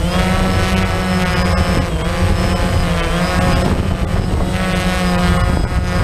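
DJI quadcopter's motors and propellers whining up close, from the camera on the drone itself. The pitch rises and falls repeatedly as the drone hovers and descends toward the pilot's hand.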